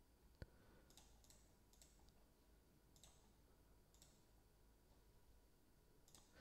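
Near silence broken by a few faint computer mouse clicks, scattered and irregular, the clearest one about half a second in.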